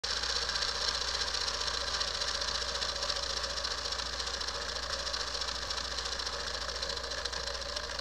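Video intro sound effect: a dense, rapid buzzing rattle that runs steadily and then cuts off suddenly at the end.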